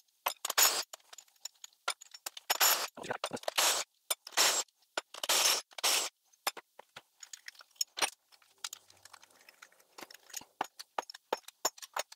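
A cordless power tool spins in short bursts, six or so in the first half, running rocker-arm nuts off a small-block Chevy 350. Then come many light metallic clinks as loose rocker arms, nuts and pivot balls are lifted off and handled.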